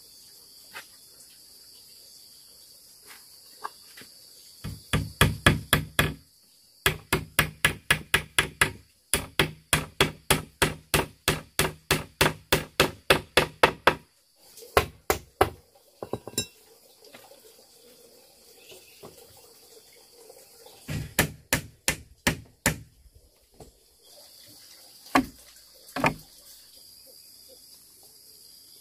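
A hammer striking bamboo in quick runs of blows, about four a second, with pauses between the runs and two single blows near the end. Insects buzz steadily behind.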